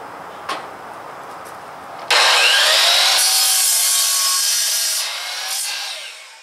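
DeWalt sliding miter saw starting suddenly about two seconds in, its motor whine rising as it spins up, then cutting through a pine 2x4. The saw runs for about three seconds, then winds down and fades away near the end.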